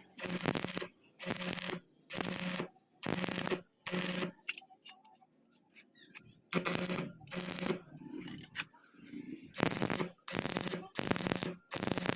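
Rhythmic back-and-forth scraping strokes of a hand tool working steel, a little over one stroke a second, with a pause of about two seconds near the middle.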